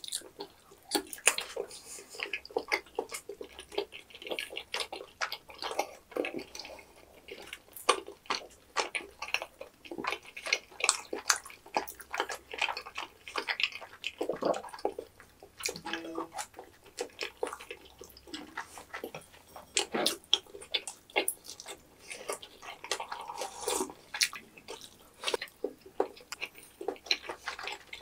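Wet chewing and lip-smacking of two people eating tteokbokki and fried foods in thick sauce, a steady irregular run of sticky mouth clicks and smacks.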